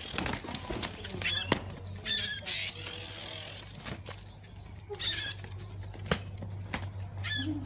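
Bird squawks and short high chirps that slide in pitch, with one longer held whistle about three seconds in, a few sharp clicks and a steady low hum underneath.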